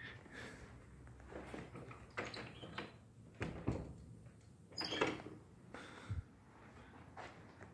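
A doorknob turned and a door opened: a series of knocks and latch clicks, the loudest about five seconds in, then a dull thud.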